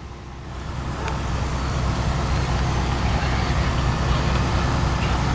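Engines of emergency vehicles running close by: a steady low rumble with traffic-like noise, growing louder over the first couple of seconds and then holding.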